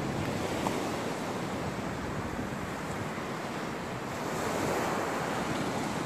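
Breaking surf washing on a sandy beach, mixed with wind buffeting the microphone. The sound is steady and swells slightly about four and a half seconds in.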